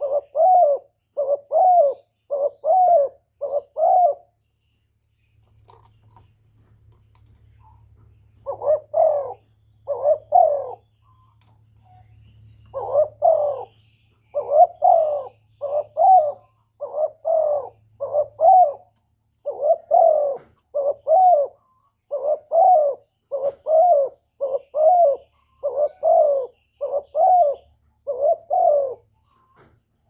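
Spotted dove cooing: a long series of short coos, roughly one every 0.7 s, with a pause of about four seconds a few seconds in and a shorter pause near the middle.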